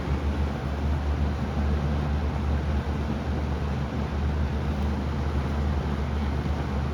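Lakewood model 227 box fan running steadily on its low speed: an even rush of air from the blades over a low motor hum.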